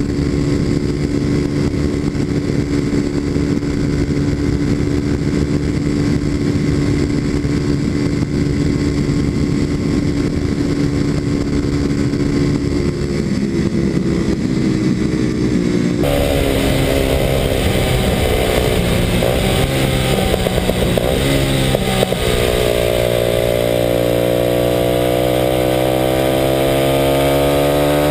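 Kawasaki KLX250SF's single-cylinder four-stroke engine through a Muzzy exhaust, running at a steady cruising note while the bike rides at speed. About halfway through the sound turns abruptly brighter, with much more wind and road hiss, and over the last few seconds the engine note climbs steadily as the bike accelerates.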